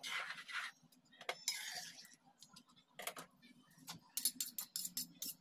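Steel spatula stirring rice and vegetables in water in an aluminium kadhai: wet scraping strokes, then clicks and a quick run of taps against the pan near the end.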